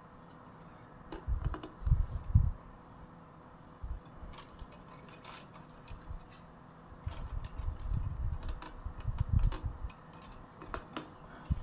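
Thin bamboo strips clicking and rustling as they are woven by hand into a crossed basket base. There are bursts of low thumps about a second in and again from about seven to ten seconds in.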